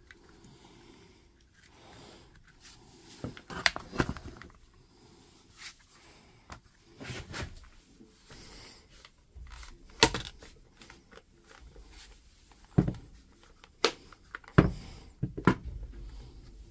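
Plastic housing and internal parts of a cordless SDS rotary hammer being handled and fitted back together: scattered sharp clicks and knocks with a light rustle of handling between them.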